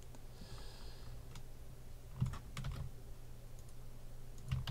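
A few clicks of a computer keyboard and mouse in two small clusters, about two seconds in and again near the end, as a list is copied and pasted into a spreadsheet, over a faint steady low hum.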